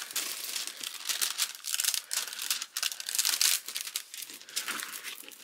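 Clear plastic cover film on an adhesive diamond painting canvas crinkling and rustling as hands rub and smooth it down. It grows fainter near the end.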